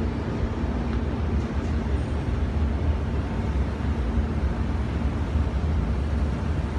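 Steady low rumble of city background noise, with a faint steady hum over it.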